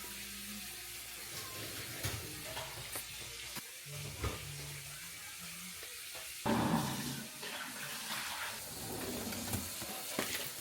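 Faint, wet chewing and mouth noises with small clicks from eating frozen wax candy close to the microphone, and a brief louder rustle about six and a half seconds in.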